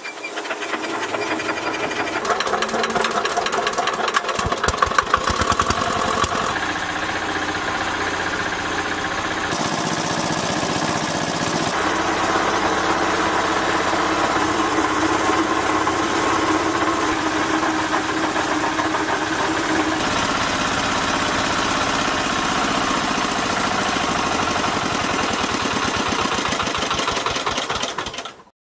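Single-cylinder diesel engine of a restored generator set, hand-cranked to start and then running steadily under its own power, belt-driving the alternator. It is loudest and knocks hardest a few seconds in, and its tone shifts abruptly a few times before it cuts off just before the end.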